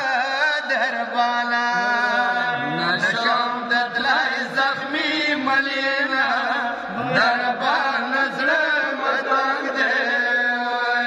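Male voice chanting a Pashto noha, a Shia lamentation, in long wavering lines that bend up and down in pitch.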